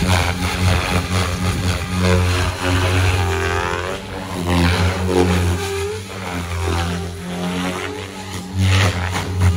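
Goblin RAW 500 radio-controlled helicopter in flight: the rotor and drive make a loud, steady buzz, and its pitch glides up and down as the helicopter manoeuvres and passes.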